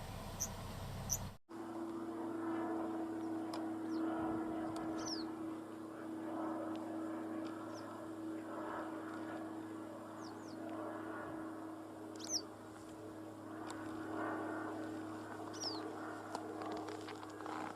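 Evenly spaced high chirps, typical of a cricket, for about the first second. After a sudden cut, birds give short, high, falling whistled calls every few seconds over a steady low hum and a murmuring background haze.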